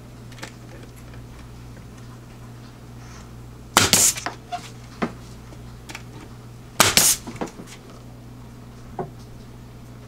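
Pneumatic nail gun driving nails into a wooden box: two sharp shots about three seconds apart, each lasting about half a second. A few lighter clicks and knocks come between the shots.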